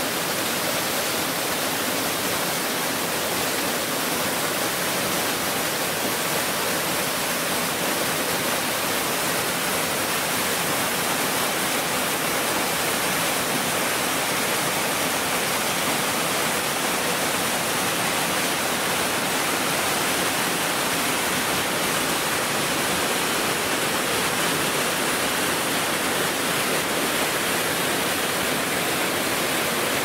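Mountain-river waterfall pouring over rock: a steady, even rush of falling water with no breaks or changes.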